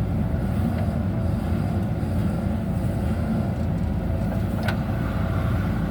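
JCB backhoe loader's diesel engine running steadily at working revs, with a single short metallic knock a little under five seconds in.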